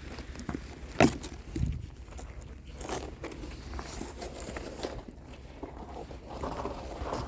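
Irregular footsteps crunching through deep snow, with a sharp knock about a second in.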